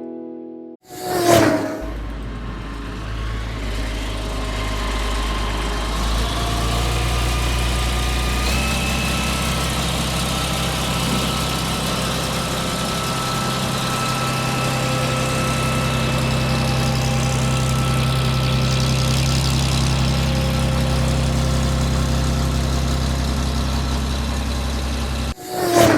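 Cement mixer truck's diesel engine running steadily, its note stepping up about eight seconds in.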